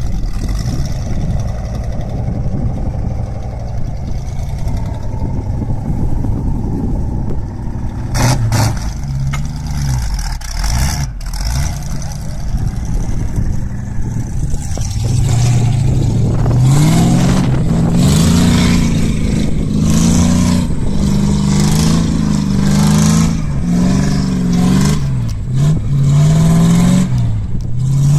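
Wood chipper's engine running, with a couple of sharp knocks near the middle. In the second half the engine speed sways up and down again and again as it labours and recovers.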